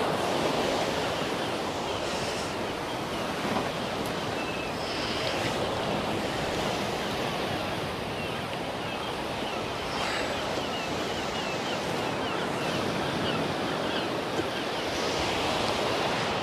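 Steady wash of sea waves breaking on the shore, mixed with wind.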